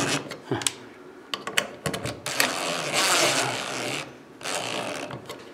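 Cordless drill driving the screws that fasten a lamp holder to a ceiling electrical box, running for about two seconds in the middle and again briefly near the end, after a few small clicks and knocks.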